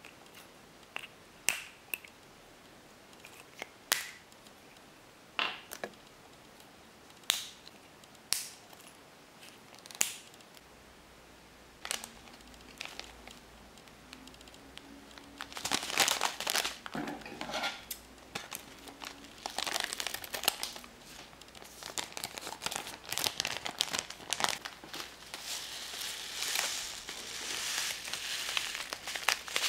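Blue plastic tray and spoon parts snapped off their moulding sprue one by one, about eight sharp clicks a second or so apart. After that comes steady crinkling and rustling as a foil powder packet and a thin plastic bag are handled.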